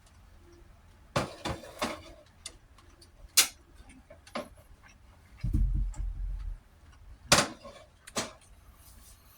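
Sharp clinks and knocks of tableware, about seven in all, with a low rumble lasting about a second just past the middle.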